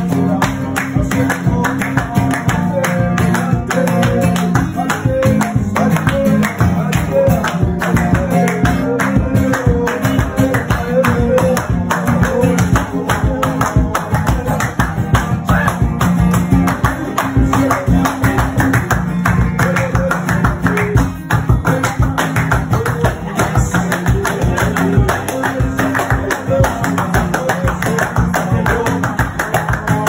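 Music: an acoustic guitar played with fast, steady strumming.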